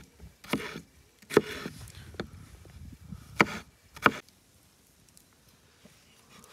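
A few sharp chopping knocks: four strong ones spread over about four seconds, with weaker taps between them.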